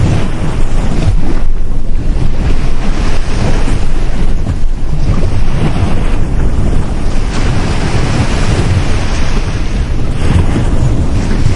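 Ocean surf breaking on a beach, loud and continuous, with washes of hiss swelling and easing every few seconds over a deep rumble, and wind buffeting the microphone.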